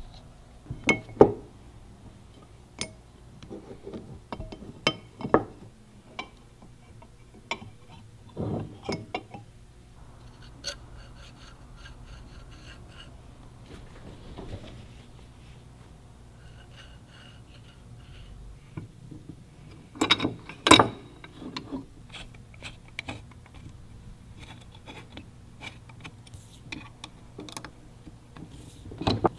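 Metal parts of a hydraulic handbrake lever clinking, tapping and rubbing as they are fitted together by hand: a clutch master cylinder and pushrod, and a steel lever going into a machined aluminium housing. Scattered clicks with a few louder knocks about a second in and about two-thirds through, over a low steady hum.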